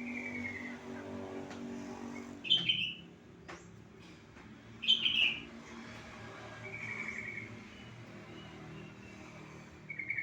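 Yellow-vented bulbul (cucak trucuk) calling in short bubbly phrases, the lure sound used to get a quiet trucuk to sing. Two loud phrases come about 2.5 and 5 seconds in, with softer trills between, over a low steady hum during the first couple of seconds.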